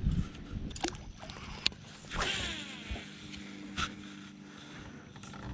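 A few sharp clicks of fishing tackle being handled, then, about two seconds in, a low steady hum from the boat's electric trolling motor running.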